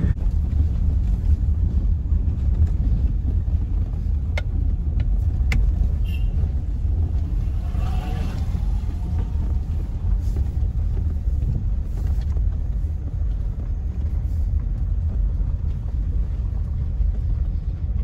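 Car driving over a rough, broken gravel road, heard from inside the cabin: a steady low rumble of engine and tyres, with a couple of sharp clicks about four and five and a half seconds in.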